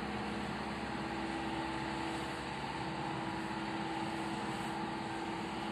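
Bucyrus-Erie 54B crawler crane's engine running steadily under load as it hoists a clamshell grab gripping a rock boulder, a constant hum with no change in pitch.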